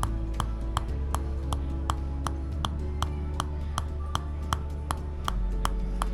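Tok Sen wooden mallet tapping on a wooden wedge in an even rhythm, nearly three sharp knocks a second, over background music with sustained low notes.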